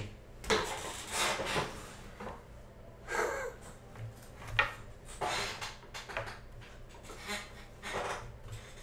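A man's heavy sighs and exhales of frustration, several short breaths in a row, mixed with rubbing and handling noises at a desk and one sharp tap about halfway through.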